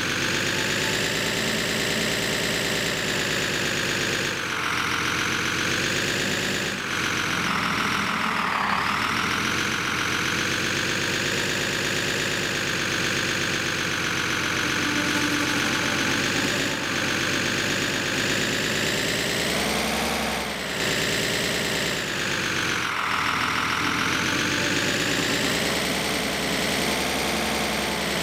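A radio-controlled scale Liebherr 636 crawler loader running as it works. It makes a steady, engine-like drone with many overtones that dips in pitch and comes back up several times, as its drive and hydraulics take up load.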